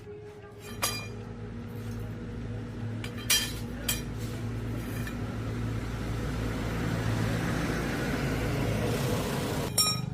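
Hair dryer's small electric motor and fan running with a steady hum and rush of air, switched on with a click just under a second in. A couple of clicks come a few seconds later, and it is switched off with a click near the end.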